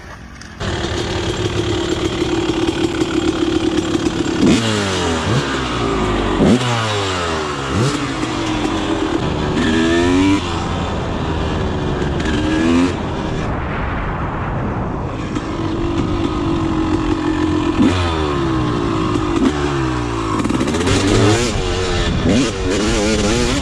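Honda CR250R's two-stroke single-cylinder engine, heard from on the bike at riding speed. The pitch climbs and falls again and again under hard throttle, with a couple of stretches of steady running. It starts about half a second in, after a quieter moment.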